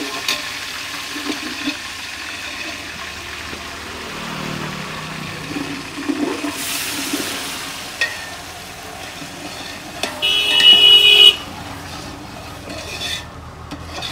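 Ground masala paste frying in hot oil in a pan, sizzling steadily as it is sautéed. About ten seconds in, a loud horn honks once for about a second.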